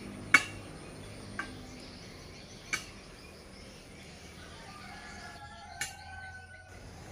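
Steady high insect chirring, as of crickets, with four sharp clicks spread through, the first the loudest, and a faint short pitched sound about five and a half seconds in.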